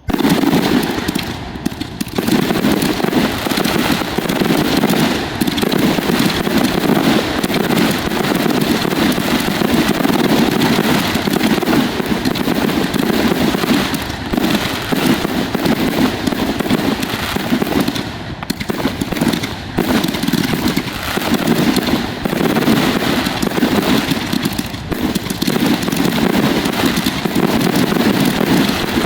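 Fireworks finale: aerial shells fired and bursting in a dense, unbroken barrage of overlapping bangs, which starts abruptly.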